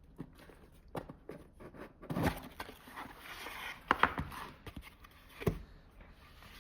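Cardboard packaging being handled and opened by hand: scattered taps and knocks, a few louder ones, with some light rustling between.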